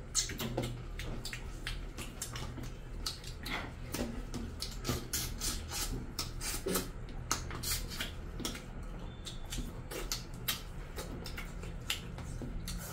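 Eating by hand: wet chewing, lip-smacking and many small irregular clicks as curry-soaked chicken and rice are chewed and fingers work the food against steel platters, over a low steady hum.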